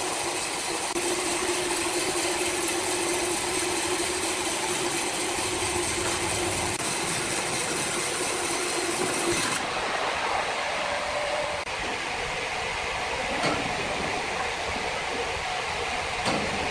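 Sawmill machinery running with a loud, steady noise and a steady hum. About halfway through the sound changes abruptly, and a few sharp knocks follow.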